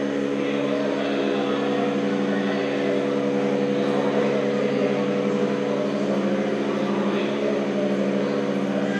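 A steady electronic drone of several low tones held together like a sustained chord, with a slight fast beating in the lowest tones.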